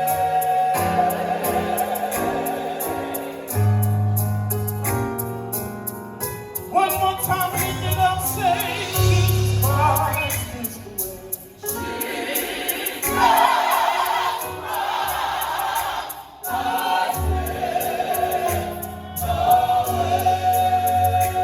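Gospel choir singing sustained chords with organ and bass accompaniment.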